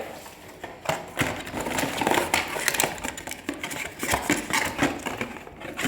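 Kitchen dishes and utensils being handled: a run of small clinks and knocks with rustling in between, busiest from about two seconds in.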